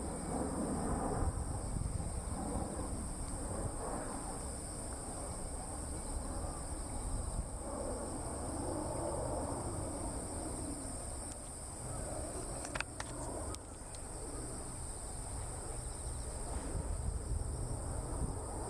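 Steady high-pitched insect chirring over a low rumble of open-air background noise, with a few faint clicks about two-thirds of the way through.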